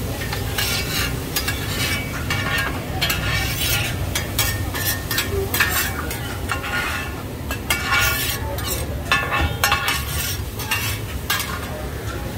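A metal spatula scrapes and stirs in a hot pan of frying hoi tod (mussel pancake), in irregular strokes about two a second, over sizzling oil.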